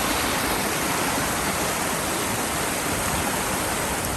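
Mountain stream rushing over rocks, running high: a steady, loud wash of water.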